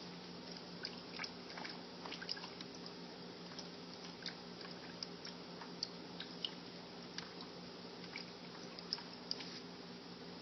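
Domestic cat lapping water from the bowl of a gravity pet waterer: quick, irregular wet ticks, a few a second, over a steady low hum.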